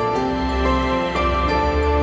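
Background music: slow, soft melodic notes changing about every half second over a sustained low bass.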